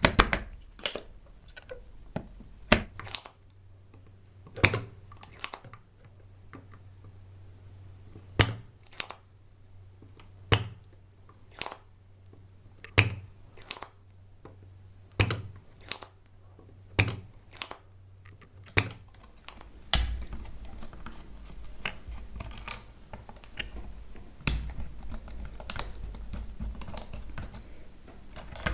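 Sharp, irregular clicks from hand tools working on the amplifier board while its two audio ICs are desoldered, roughly one a second. A low steady hum runs through the middle, then gives way to a low rumble.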